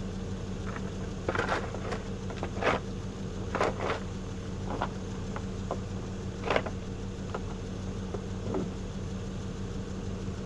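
Truck engine idling steadily while rocky dirt and stones are scraped and dug away by hand at a stuck wheel, with a run of sharp, irregular scrapes and clanks that are loudest in the first seven seconds.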